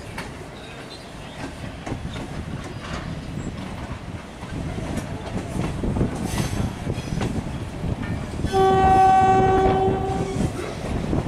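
Wheels of a moving electric passenger train clattering over rail joints and points, heard from an open coach doorway, getting louder partway through. About eight and a half seconds in, a train horn sounds for nearly two seconds with a short break.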